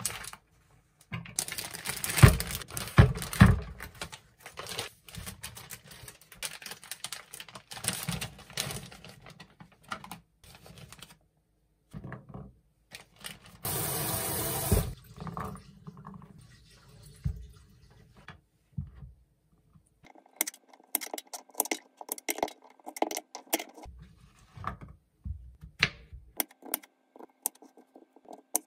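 Kitchen prep at a cutting board: a plastic produce bag crinkling and rustling as an onion is unwrapped, then a brief rush of tap water running into the sink about halfway through. Near the end come quick light clicks and taps as mushrooms are handled on the plastic cutting board.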